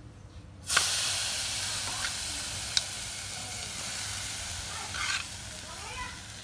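Chicken stir-fry with lemongrass and hot basil sizzling in hot oil, starting suddenly less than a second in and hissing steadily, with a few sharp clinks of a metal spatula against the pan.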